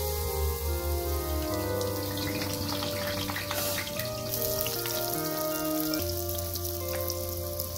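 Background music of held chords over a deep bass, laid over the crackling sizzle of dough frying in shallow hot oil in a pan.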